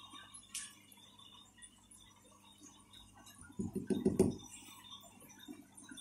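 Mostly quiet, with a faint click near the start and a short cluster of soft low thumps about three and a half seconds in, as a hand comes up against the aquarium glass.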